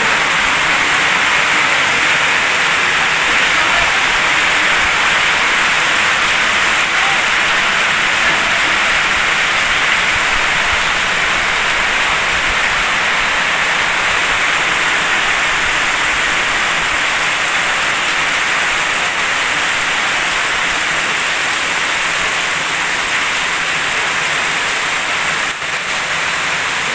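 Heavy rain pouring steadily, splashing onto a puddled concrete courtyard.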